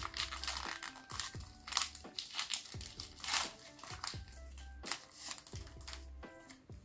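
Foil booster-pack wrapper crinkling and tearing in a series of short crackles, loudest about a couple of seconds in, over background music with a regular bass pulse.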